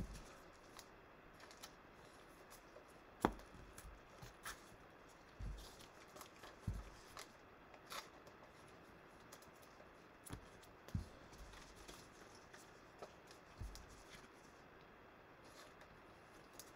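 Faint, scattered clicks and rustles of a foil trading-card pack being opened and its cards handled with nitrile-gloved hands, with one sharper snap about three seconds in.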